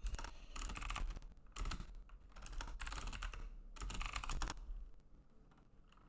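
Typing on a computer keyboard in several quick bursts of keystrokes, dying down for the last second or so.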